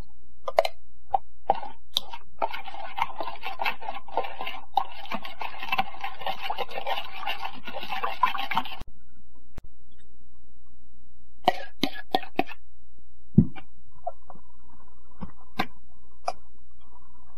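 Metal spoon stirring sugar into vinegar in a bowl: a few taps and clinks, then several seconds of continuous gritty scraping against the bowl. After a break, scattered clinks and a thump as the spoon works through grated daikon and carrot in a stainless steel bowl, over a steady low hum.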